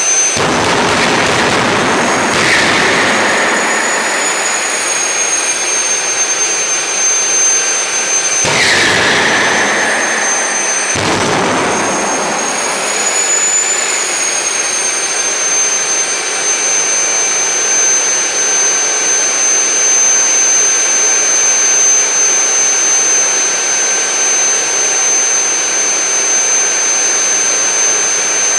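Homemade turbojet built on an HX80 turbocharger and fitted with an afterburner, running with a steady high-pitched turbine whine over a loud exhaust rush. Brief surges of low rumble come about 8 and 11 seconds in, and the whine rises briefly about 13 seconds in before settling back.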